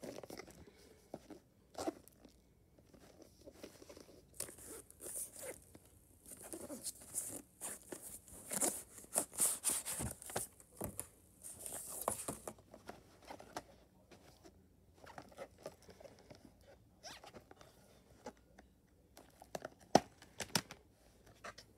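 Plastic wrap being torn and crinkled off a Blu-ray box set: scratchy tearing and rustling, densest from about four to twelve seconds in, among handling knocks of the cardboard box and plastic case, with a sharp click near the end as the plastic Blu-ray case is opened.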